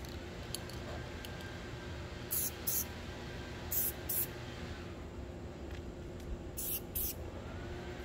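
Aerosol spray paint can sprayed in short bursts: three pairs of quick hisses, each about a third of a second long.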